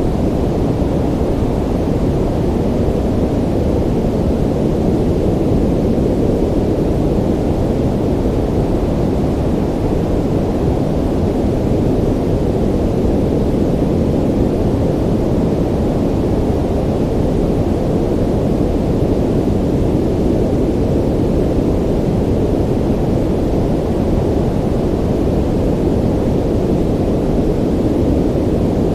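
Ocean surf as a steady, low, rushing rumble, with no single wave breaks standing out.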